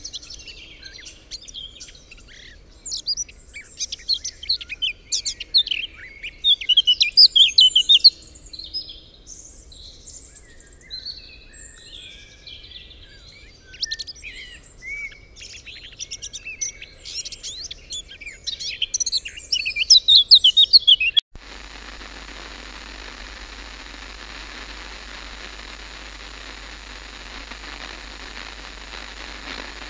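A chorus of songbirds chirping and singing, many short high calls in quick succession. About two-thirds of the way through, the birdsong cuts off abruptly and gives way to a steady hiss of static.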